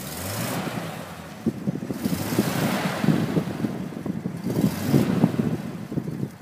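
Engine of a 1942 Seagrave fire truck running at idle, with uneven low pulsing, and wind gusting on the microphone in waves.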